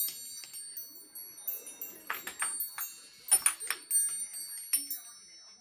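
Wind chimes struck in uneven clusters as a kitten paws at them, the chimes ringing on with high, overlapping tones between the strikes.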